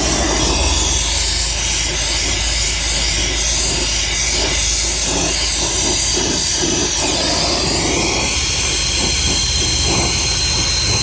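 Brazing torch flame hissing steadily as it heats a copper suction-line joint during soldering of a refrigerant leak repair.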